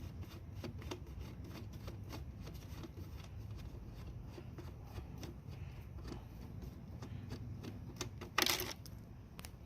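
Allen wrench turning a small screw out of a scooter's battery cover: a run of small, irregular metal ticks and clicks, with one louder, brief scrape near the end.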